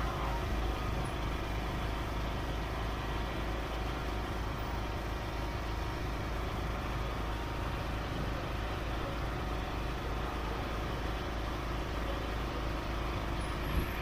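A boat's engine running steadily while the boat is under way, under a constant rush of noise with a strong low rumble.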